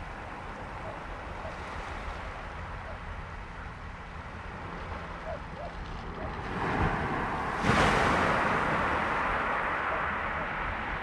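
Sea surf on a shingle beach with a low wind rumble; about seven seconds in, a wave swells and breaks loudly, and its wash over the pebbles fades away slowly.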